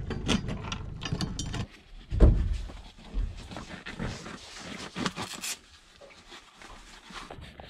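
Handling noise of dive gear being put on: scattered knocks, clicks and rustling, with one heavy thump about two seconds in.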